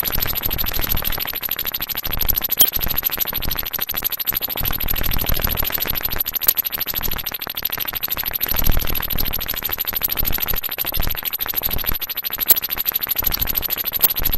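Synthesized sci-fi electronic texture: a fast throbbing stream of glassy, percussive pulses like an alien creature pecking on glass, with low swells rising and falling underneath.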